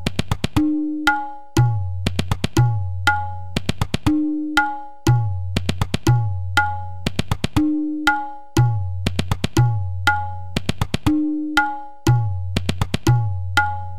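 Tabla playing a seven-beat Tewra (Tivra) theka at 120 beats per minute, the cycle Dhin TiReKiTe Dhin Na TiReKiTe Tin Na repeating about every three and a half seconds. Deep bayan bass strokes mark the start of each cycle, with quick TiReKiTe runs of sharp strokes between, over a steady held note.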